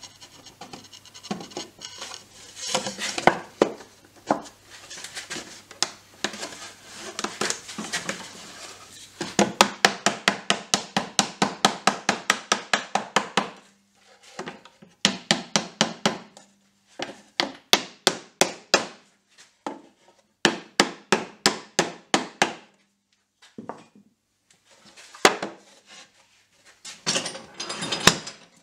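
Wooden mallet knocking a pallet-wood board home into its joints on a wooden box. First come scattered knocks, then a fast even run of light blows, about four or five a second, then shorter runs of blows with brief pauses between them.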